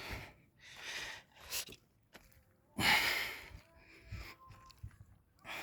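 A person's breathing, close to the microphone: several noisy breaths, the loudest about three seconds in.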